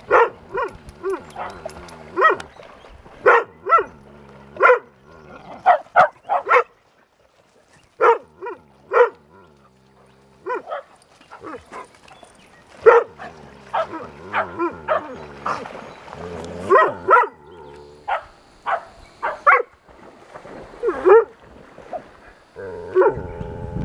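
A collie barking over and over at a passing boat: sharp single barks at irregular spacing, sometimes two or three in quick succession, with a few short pauses. Near the end a low rushing noise comes in.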